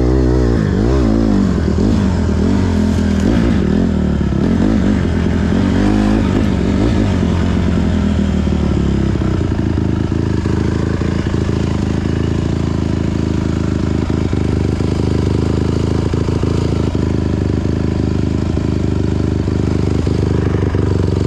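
Dirt bike engine running under riding load, its pitch rising and falling through the first several seconds and then holding steadier, with scattered knocks and clatter from the bike over the trail.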